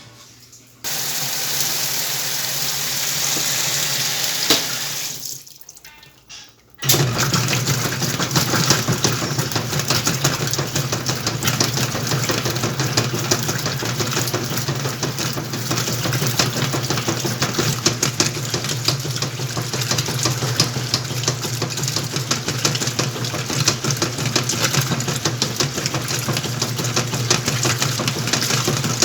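Whirlpool washing machine: water hisses into the tub for a few seconds and fades. About seven seconds in the motor starts and runs steadily with a low hum and a fast, even churning for the rest of the time.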